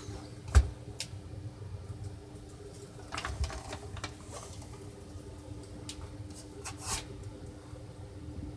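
Kodak 4600 Carousel slide projector running with a steady buzz, a sign of a fault even though the projector works. Several sharp clicks sound over it, the loudest a thump about half a second in.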